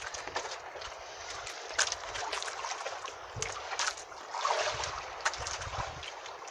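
Water sloshing and splashing against a small fishing boat, a steady wash broken by many short knocks and clicks.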